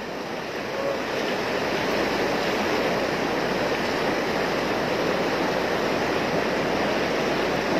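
Flash floodwater rushing in a fast, steady torrent. It grows louder over the first couple of seconds, then holds.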